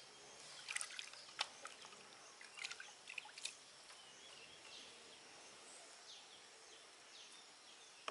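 Water shaken off fingers dripping and splashing into a basin of water: a handful of small, sharp splashes in the first three and a half seconds, over faint chirping birds.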